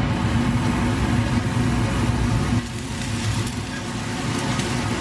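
Chopped onion sizzling in hot oil in a frying pan, over a steady low hum that drops away about two and a half seconds in.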